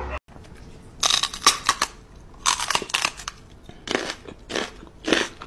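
Repeated crunching in short clusters, a burst of a few crunches about every second.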